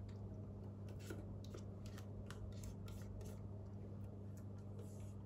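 Faint, irregular small clicks and rustles of thick cake batter being poured from a Thermomix's steel mixing bowl into a parchment-lined loaf tin, over a steady low hum.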